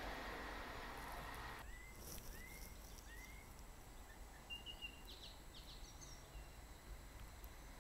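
A passing train's running noise fading away, cut off abruptly about a second and a half in; then faint birdsong: three short rising calls about half a second apart, followed by a few higher chirps.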